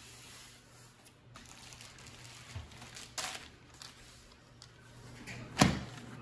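Soft rustling and handling noises, with one sharp knock a little after five seconds in.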